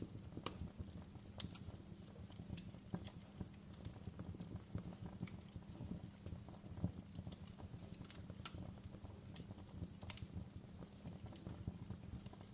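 Wood fire burning in a fireplace: irregular sharp crackles and pops over a low steady rumble.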